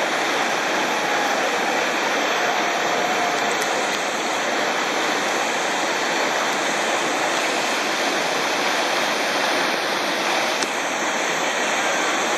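Whitewater river rapids rushing steadily over rocks.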